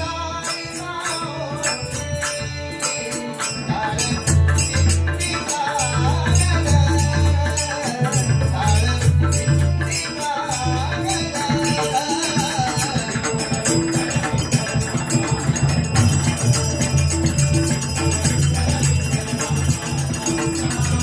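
Devotional bhajan music in the tal dindi gajar style: a dense, rapid clashing of tal hand cymbals under a wavering sung melody, with strong low tones that come and go underneath.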